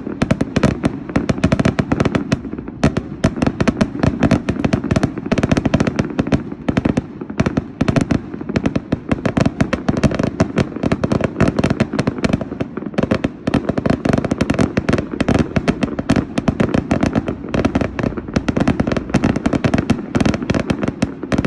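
Fireworks display going off in a dense, continuous barrage of rapid overlapping bangs, many each second, with no pause.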